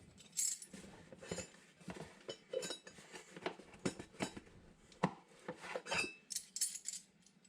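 Hand tools and steel parts clinking and knocking irregularly during work on a VW T3's rear wheel hub and brake assembly, with one sharper clink about six seconds in that rings briefly.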